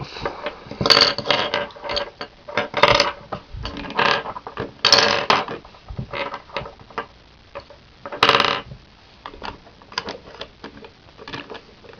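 Loose plastic pieces of a taken-apart Rubik's Cube clicking and clattering as they are handled and sorted, in irregular bursts, the loudest about five and eight seconds in.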